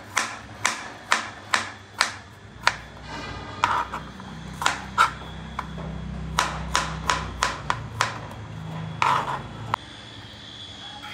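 Kitchen knife chopping an apple on a plastic cutting board: a run of sharp knocks about two a second, pausing briefly about three seconds in, then going on until near the end.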